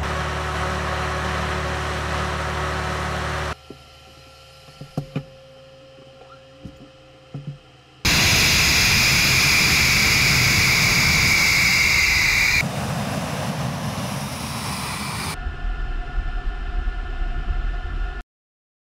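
MiG-31 jet engines heard across several abrupt cuts: steady engine noise, then a quieter stretch with a few knocks and clicks, then a loud high turbine whine. Near the end there is engine noise with crackling, and the sound then cuts off abruptly.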